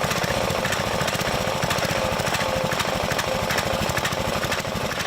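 Small gasoline engine of a gas pressure washer running, a fast, steady, rapid firing throughout.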